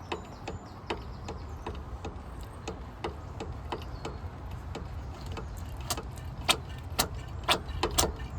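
A series of irregular sharp clicks and knocks, coming more often and louder in the last couple of seconds, over a steady low rumble.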